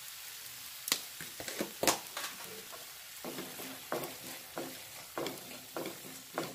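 Onion-and-tomato masala sizzling in a frying pan while a wooden spatula stirs and scrapes through it. There are two sharp knocks about one and two seconds in, then a steady run of strokes about every half second to two-thirds of a second.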